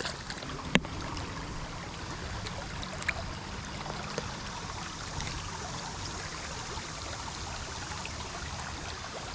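Creek water running steadily over rocks, with a sharp click about a second in and a fainter one about three seconds in.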